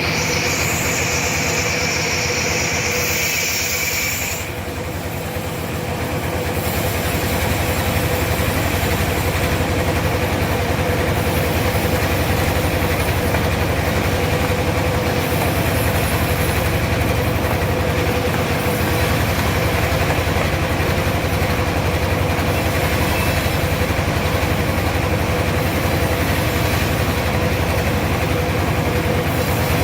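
Sawmill machinery running steadily. A high whine stops about four seconds in, and then the machine carries on running at an even pitch.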